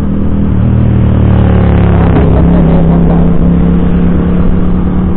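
Rusi Passion SC 125 scooter's 125 cc engine running steadily at cruising speed, under wind rumble, getting louder about half a second in.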